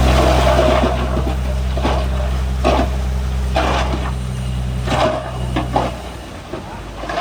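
Diesel engine of heavy earthmoving machinery running steadily, with short, sharp knocks or squeaks every second or so. The engine hum drops away abruptly about six seconds in.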